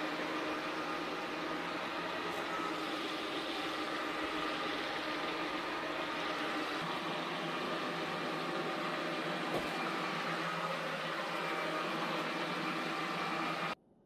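Airmade Glide S cordless wet-mop cleaner running, its dual motors spinning the wet roller brushes as it mops the floor: a steady hum that cuts off suddenly near the end.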